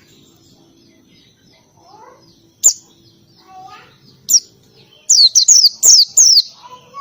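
White-eye (pleci) singing: two sharp single high notes, then a quick run of about six loud high notes, each dropping in pitch, the canary-like burst that bird keepers call a 'tembakan'. Fainter bird chirps in the background.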